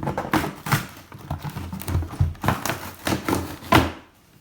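A cardboard toy box being pulled apart and handled: irregular knocks, clicks and rustles of cardboard and packaging.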